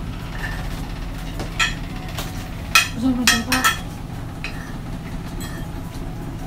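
Spoons and forks clinking and scraping against dinner plates during a meal, with a handful of sharp clinks grouped near the middle. A steady low hum runs underneath.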